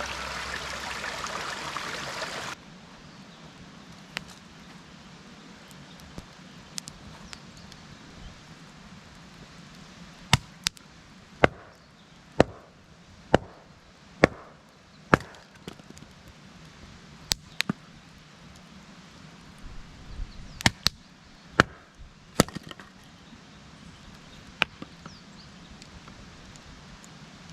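Firewood being split by hand: sharp, separate strikes on wood, mostly about one a second in two runs, with short pauses between.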